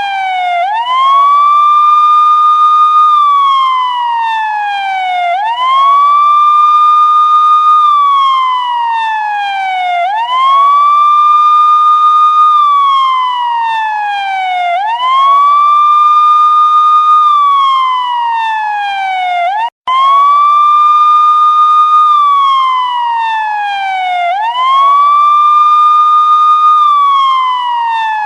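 Police siren sounding a wail: each cycle sweeps up quickly, holds at the top, then slides slowly down, repeating about every four to five seconds, six times in all. The sound cuts out for an instant a little past the middle.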